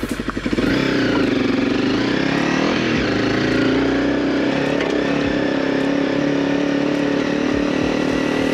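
Honda CRF250 single-cylinder four-stroke motorcycle engine pulling under way. The revs rise and dip a little in the first few seconds, then hold fairly steady.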